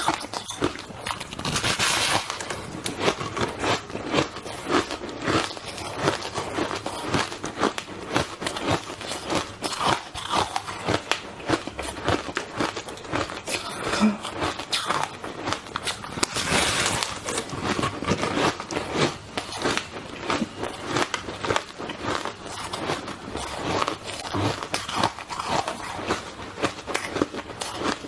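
Shaved ice being bitten and chewed close to the microphone: a dense, unbroken run of crisp crunches and crackles.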